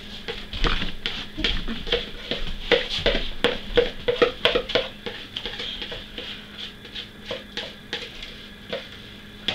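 Spoon scraping and tapping cake batter out of a plastic mixing bowl into a metal baking pan: a quick, irregular run of scrapes and clicks, thickest in the first half and thinning out later.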